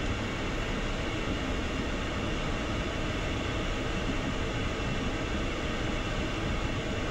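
Steady cockpit noise of an Embraer Phenom 300E taxiing slowly with its two rear-mounted turbofans at idle, an even hiss over a low rumble that does not change.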